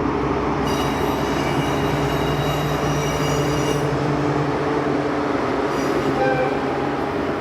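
Train running past on the rails: a steady loud rumble with a hum, and a high whine that sets in about a second in and fades near the halfway point.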